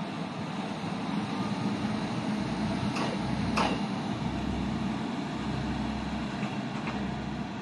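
Shimabara Railway diesel railcar arriving slowly at a station, its engine running with a steady hum and a low rumble that builds from about a third of the way in. A couple of short sharp sounds stand out near the middle.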